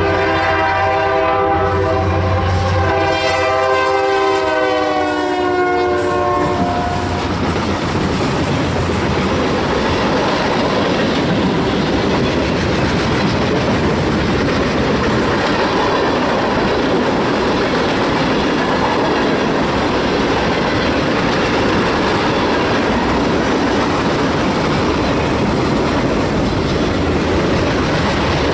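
Norfolk Southern SD70 diesel locomotive sounding its horn, a sustained multi-note chord for about the first six seconds, dropping slightly in pitch as the locomotive passes. Then a long freight train rolls by steadily, wheels clickety-clacking over the rail joints.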